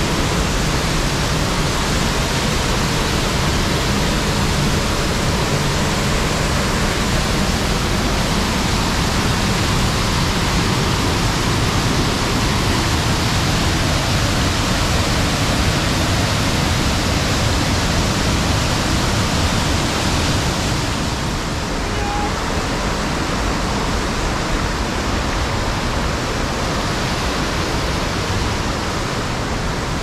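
Waterfall in heavy spate after rain, a loud steady rush of falling water. About two-thirds of the way through the sound becomes slightly softer and duller.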